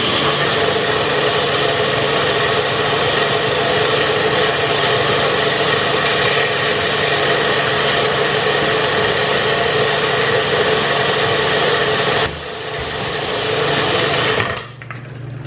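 Single-serve personal blender running hard, blending a green smoothie of kale and frozen fruit: a loud, steady motor whine. It eases off briefly about twelve seconds in, picks up again, and cuts off just before the end.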